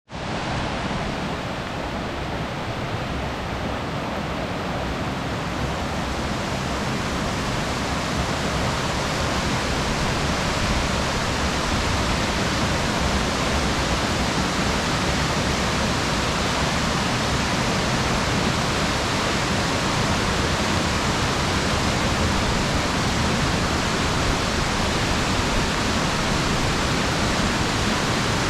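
Waterfall: a steady rush of falling water, growing a little louder over the first several seconds and then holding even.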